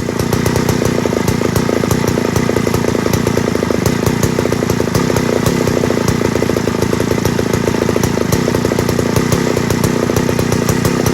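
Vintage Lombard two-stroke chainsaw running steadily at high speed, a dense rapid firing rattle with no let-up.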